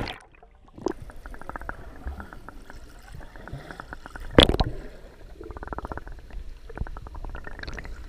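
Water heard through a camera held underwater: a muffled low gurgling with a patter of small clicks and bubbles, and one louder sharp knock about four seconds in.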